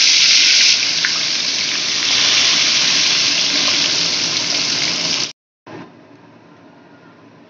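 Pieces of bhola fish frying in hot oil in a steel wok, a loud steady sizzle. It cuts off about five seconds in, and a much quieter sizzle of the oil alone follows.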